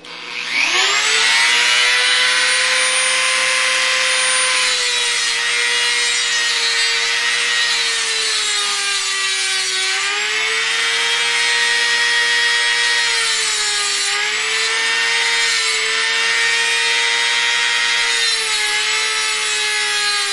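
Dremel rotary tool spinning up about half a second in, then cutting a carbon-steel hacksaw blade with an abrasive cutoff disc. A steady motor whine dips in pitch each time the wheel bites into the steel, over a harsh grinding hiss.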